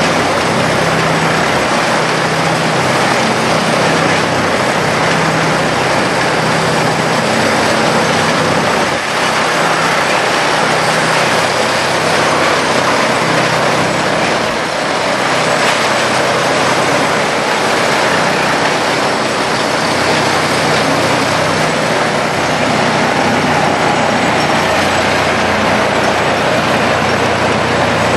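Morbark 1200 tub grinder running, its diesel engine holding a steady low hum under a constant loud mechanical noise.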